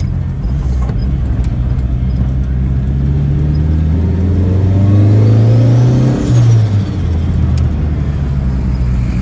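Turbocharged pickup engine pulling under throttle: its pitch climbs for a few seconds with a faint turbo whistle rising over it. About six seconds in the throttle is lifted and the engine note drops sharply, the whistle falling away. The engine then settles into a steady lower run.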